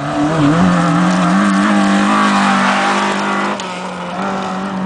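Rally car engine held at high revs as the car passes on a gravel stage, with a brief dip and recovery in pitch about half a second in and then a steady high note. The sound drops in level about three and a half seconds in.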